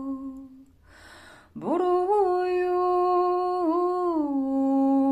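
A woman singing unaccompanied. A held note ends, she takes a soft breath, then holds one long higher note with small turns in pitch, sliding down to a lower note near the end.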